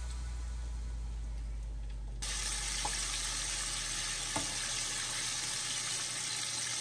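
Flour-coated chicken deep-frying in hot oil: a steady sizzle that starts suddenly about two seconds in, with a couple of light clicks from metal tongs turning the pieces. Before it, a low hum fades away.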